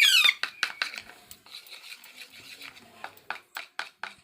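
Alexandrine parakeet's shrill screech cutting off just after the start, then a run of light, sharp clicks and taps against a dish, about three or four a second.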